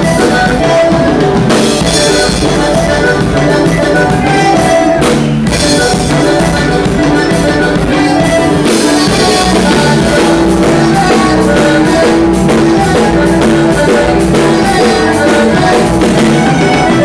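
Band music with a drum kit, bass drum and snare keeping a steady beat under sustained instrumental notes, without singing.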